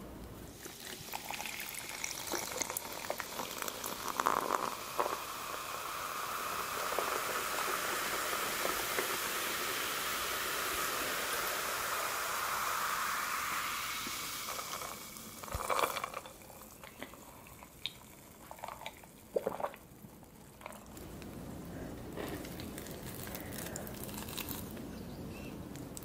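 Canada Dry ginger ale poured from a can over ice into a stainless-steel cup, with a steady fizzing hiss that lasts about fourteen seconds. After that come a few short clicks as the cup is handled.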